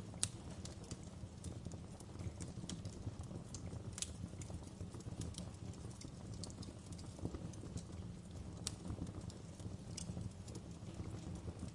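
Wood fire crackling in a stone fireplace: irregular sharp pops and snaps, one louder pop right at the start, over a steady low rumble of the burning fire.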